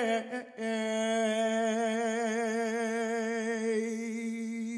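A woman's solo singing voice holds the long final note of a gospel song with a slow vibrato, after a brief break about half a second in. The note eases down gradually in loudness.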